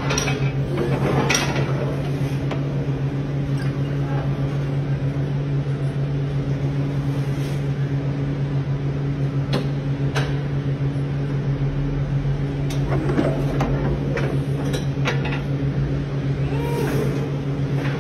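Electric reach truck's hydraulic pump motor running steadily while the mast lifts a pallet, a constant hum, with a few sharp clicks.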